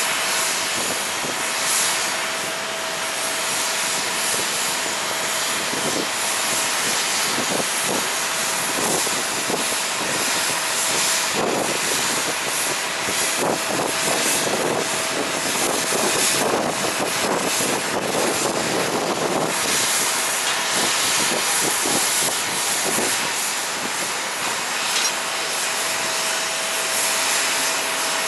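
Jet airliner engines running, a steady, even noise across the apron.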